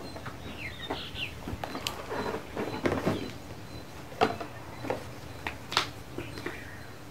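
Paper and packaging being handled: rustling with scattered sharp taps and clicks, the loudest a little past the middle. Short bird chirps sound in the background about a second in.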